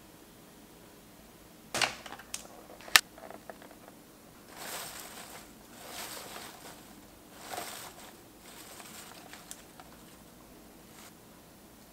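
Two sharp clicks about a second apart, then hands tossing fresh arugula leaves in a glass bowl: a few soft rustling swells that trail off into faint crackle.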